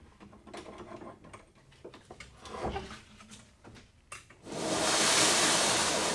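Light clicks and knocks of tools being handled at a workbench, then a loud, steady hiss for about two seconds near the end.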